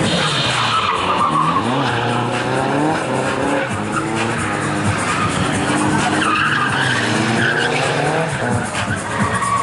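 Drift cars sliding on the track: engines revving up and down and tyres squealing, with music underneath.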